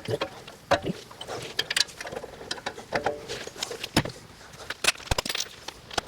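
Irregular metallic clicks and knocks of tools and brake parts being handled while a brake caliper is refitted.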